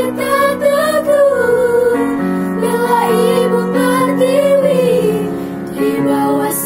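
A small girls' choir singing a melody together with vibrato, accompanied by held chords on a Yamaha electronic keyboard that change every few seconds.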